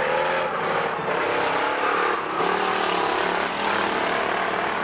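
Engines of several race cars running hard together on the track, their pitches rising and falling as they accelerate and lift through the corners.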